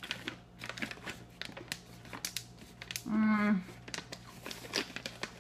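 Crunching of a small crisp lemon mini cookie being chewed close to the microphone: a rapid, irregular scatter of sharp cracks, with a short hummed "mm" about three seconds in.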